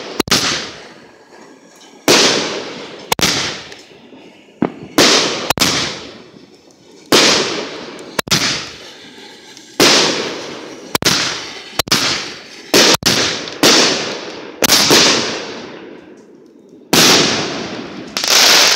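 Aerial fireworks bursting overhead at close range: a rapid series of about fifteen loud, sharp bangs, one every second or two, each trailing off over a second or so.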